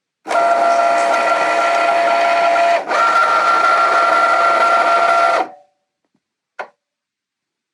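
A small electric motor running at a steady high whine, briefly broken off about a third of the way in, then stopping abruptly, followed by a single short click.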